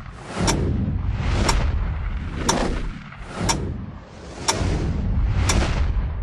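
Countdown sound effect: a deep boom with a sharp crack struck once a second, six times, each hit preceded by a short swell, over a low rumble.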